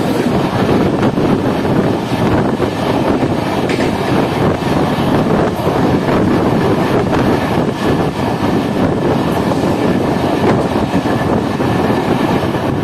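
Two express trains crossing at speed, heard from the open doorway of one: a loud, steady rush of wind and wheel-on-rail noise as the other train's electric locomotive and coaches run past close alongside, with scattered clicks.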